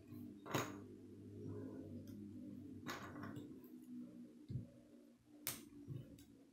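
K'nex plastic connectors and rods being snapped together by hand: three sharp clicks a couple of seconds apart, with a few softer ticks near the end, over a faint steady hum.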